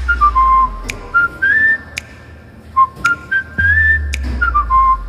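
A whistled tune, short notes stepping up and down with small slides between them, over sharp clicks and a steady low bass, as in a background music track.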